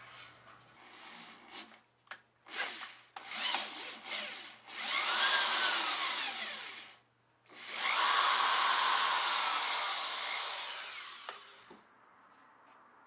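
Small handheld power grinding tool working on welded steel, cleaning up the welds: a few short bursts, then two long runs with a whine that rises and falls as it bears into the metal.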